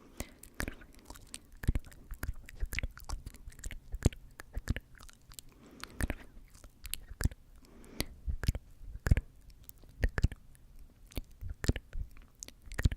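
Close-miked ASMR mouth sounds: rapid, irregular wet tongue and lip clicks ('tk tk'), with a few soft breathy passages.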